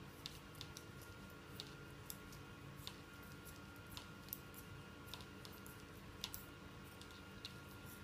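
Faint, irregular clicks of metal knitting needles tapping against each other as a row of knit stitches is worked, over a low steady hum.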